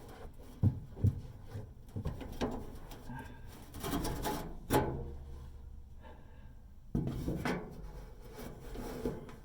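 Handling noise from a hand working inside the back of a dryer at its drive belt and idler pulley: irregular rubbing and scraping, with a few sharp knocks.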